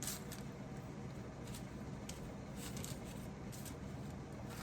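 Light crisp rustles and small clicks scattered through a low room hum, from hands placing pats of butter on fish fillets on parchment paper.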